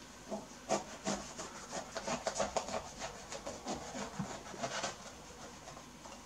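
A pomelo's thick rind being worked open by hand: a quick run of short scraping, rasping strokes, several a second, stopping about five seconds in.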